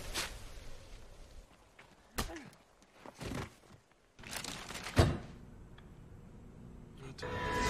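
A few separate dull thuds and knocks from a film soundtrack, spaced a second or so apart, the loudest about five seconds in.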